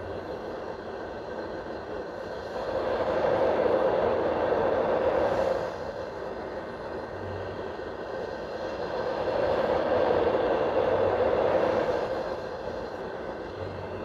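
Marpac Dohm Uno fan white noise machine running with a steady rushing hiss. As its cap is turned, the sound changes tone and grows louder and fuller about three seconds in, falls back around six seconds, then swells again from about nine to twelve seconds.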